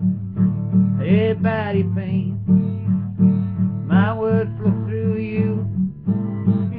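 Acoustic guitar strummed in a steady rhythm, with a man's voice singing briefly about a second in and again around four seconds in.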